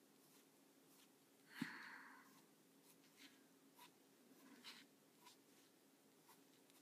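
Near silence with faint scratching ticks of a Micron 01 fineliner pen's nib drawing lines on paper, and one louder brief noise about one and a half seconds in.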